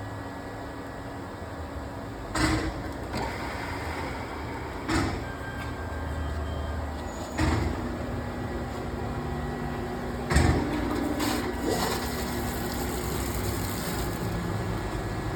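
Hitachi Seiki Hitec-Turn 20 S II CNC lathe running under power: a steady machine hum broken by sharp mechanical clunks, about one every two and a half seconds at first and then a few closer together. A high hiss joins for a couple of seconds near the end.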